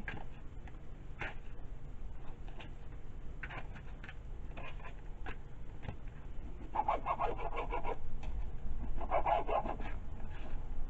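Kitchen knife cutting raw chicken breast into small pieces on a cutting board: light taps of the blade on the board, with two longer rasping stretches about seven and nine seconds in.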